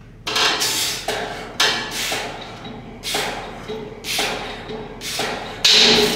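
A man breathing hard in time with chest-press reps: sharp, hissing breaths through the mouth, about one to two a second, the loudest near the end.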